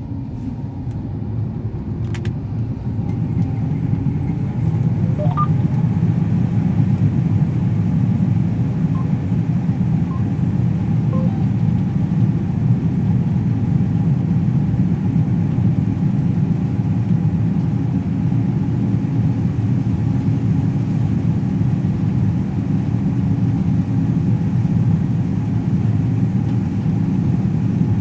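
Combine harvester running as it cuts a wheat sample: a heavy, steady low rumble that builds over the first five seconds, then holds level.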